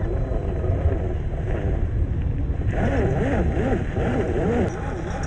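RC scale crawler (Jeep Cherokee XJ on an Axial SCX10 II chassis, 540 brushed motor) driving, its motor whine rising and falling several times with the throttle from about three seconds in, over a steady low rumble.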